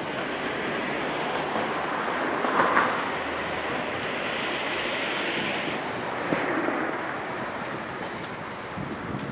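Outdoor rushing noise of wind on the microphone mixed with passing street traffic, swelling for a few seconds in the middle and easing off, with a short knock now and then.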